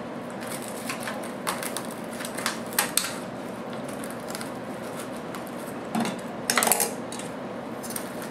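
Kitchen scissors snipping and cracking through a sea urchin's shell on a wooden cutting board, with scattered clicks and scrapes as it is cut open. The loudest cluster of cracks comes about six seconds in.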